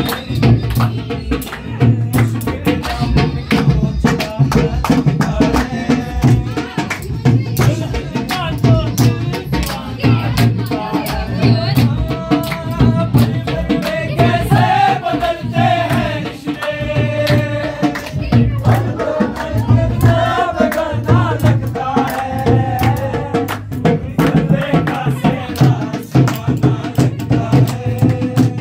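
Group of men singing a sehra wedding song together, accompanied by a dholak hand drum beating a steady rhythm, with many sharp clicks over it. The voices stand out most in the middle.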